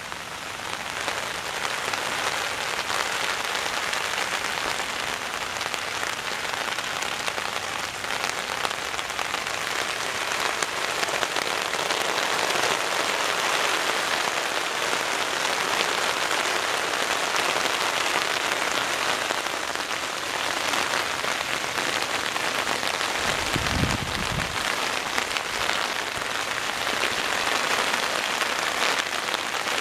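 Heavy downpour drumming steadily on a BE-X tarp stretched just overhead, a dense even hiss of rain on the fabric. A short low rumble comes late on.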